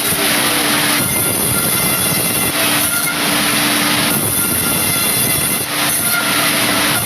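Woodworking machine running loudly and steadily, with louder hissing stretches every few seconds as it works rubberwood.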